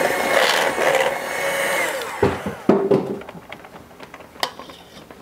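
Electric hand mixer running in batter in a stainless steel bowl for about two seconds, then switched off so its whine falls away. A few knocks follow, then faint clicks.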